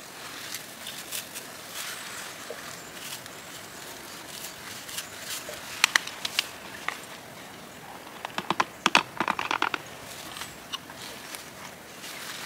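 Hand-held berry scoop raking through wild blueberry bushes: leaves and sprigs rustling, with two short runs of sharp clicks from the scoop's tines, about six seconds in and again a couple of seconds later.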